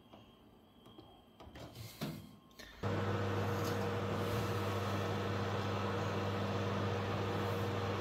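Samsung GE83X microwave oven: a few faint taps on its control panel, then, a little under three seconds in, the oven switches on and runs with a loud, steady hum.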